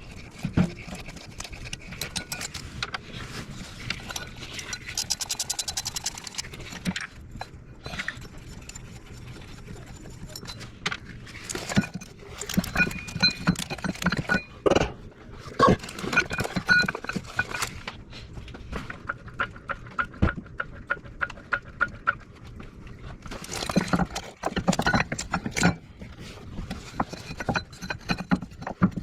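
Hand tools working on a car engine: irregular metallic clicks, clinks and knocks in clusters, with a quick run of even clicks about five seconds in.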